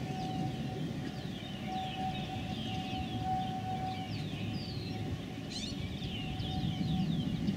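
Vintage electric streetcar rolling slowly on the track: a low rumble with a thin steady whine that comes and goes. Birds chirp over it in many short falling notes.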